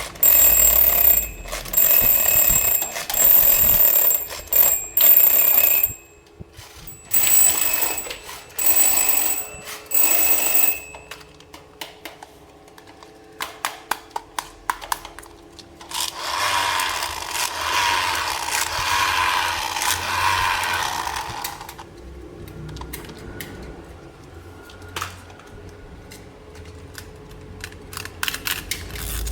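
A toy's ringing, like a telephone bell or alarm, in a series of short repeated bursts for the first ten seconds or so. Then comes a run of small plastic clicks and handling noise.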